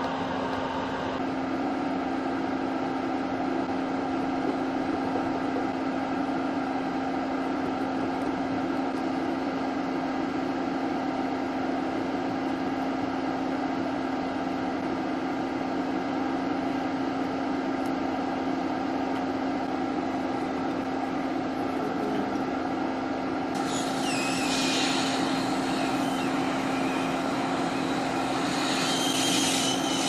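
Steady hum of a small electric fan, with a hiss of blown air that comes in about 24 seconds in and grows louder near the end.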